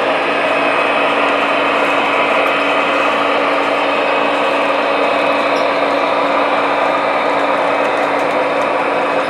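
Model train locomotives running on the layout: a steady mechanical whir of their motors and wheels on the track, with a constant hum underneath.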